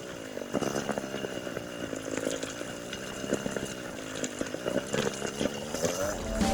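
Motorcycle engine running on a rough off-road trail, its pitch rising and falling as the throttle changes, with a few knocks.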